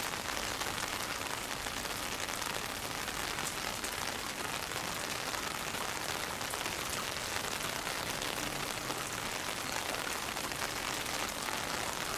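Heavy typhoon rain falling steadily, a continuous even hiss of many drops.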